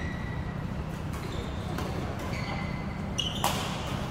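Badminton rally: a racket strikes the shuttlecock with one sharp crack about three and a half seconds in, with several short squeaks of court shoes on the hall floor before it and a steady low hum of the hall underneath.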